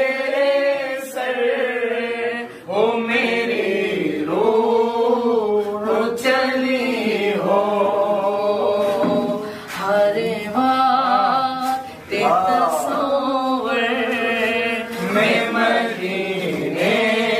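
A voice singing an Urdu naat in a chanting style, in long, held and wavering phrases with short breaks between lines.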